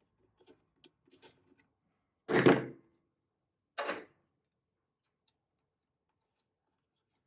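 Faint small clicks of pliers working a small brass screw in an airgun stock, then a sharp knock about two and a half seconds in as the pliers are set down on a cutting mat on a table. A second, shorter knock follows about a second and a half later as tweezers are picked up from the mat.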